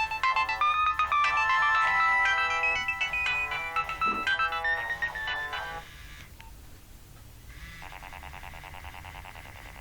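Nokia 1112 mobile phone ringtones playing through the phone's small speaker. A busy melody of bright electronic notes, several sounding together, stops about six seconds in. After a short lull, a quieter ringtone starts with a fast, even pulsing pattern.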